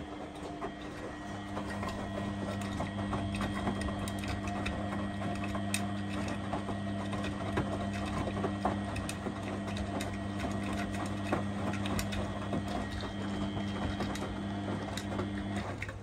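Two Beko washing machines running together: a steady motor hum comes in about a second in and cuts off near the end as a drum stops turning, over constant small clicks and rattles.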